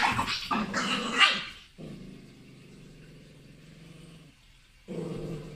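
Small fluffy puppy barking several times in quick succession, followed by two long, steady low growls, the second louder, during a standoff with a cat.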